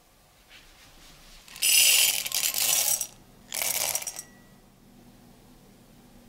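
Chocolate discs poured into a glass bowl, clattering against the glass and each other, in two pours: a longer one about a second and a half in, then a short one.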